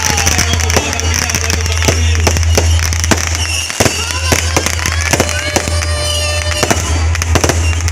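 Aerial fireworks going off: many sharp bangs and crackles in quick, irregular succession, with a few whistling glides.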